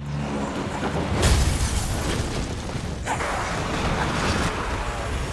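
Trailer sound effects: a dense, noisy rumble with heavy boom hits about a second in and again about three seconds in.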